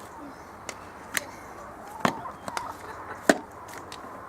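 Garden shovel knocking and scraping against the chicken coop floor while old bedding is cleared out: a series of sharp knocks, the loudest about three seconds in.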